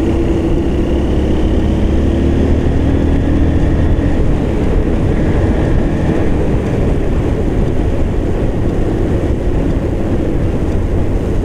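Riding a motorcycle: a steady rush of wind on the microphone, with the engine running underneath and its note drifting slowly lower over the first few seconds.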